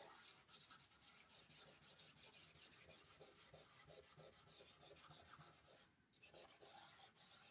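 A hand rubbing chalk pastel into drawing paper to smudge and blend it: quick back-and-forth strokes, about five a second, with a short pause near the end.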